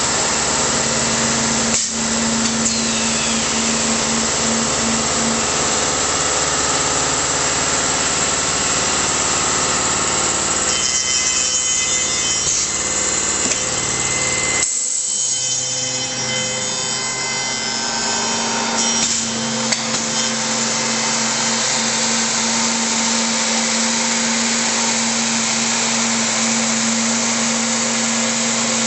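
MX3810B tenoning machine running, its motors and cutter heads making a loud, steady machining noise with a constant hum. Just past the middle the sound breaks off abruptly and resumes.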